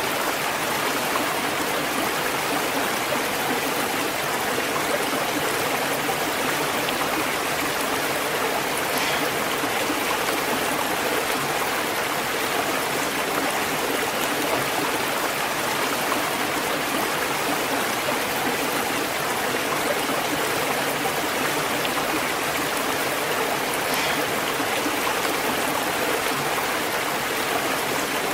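Waterfall and flowing water rushing steadily, an even splashing noise without letup.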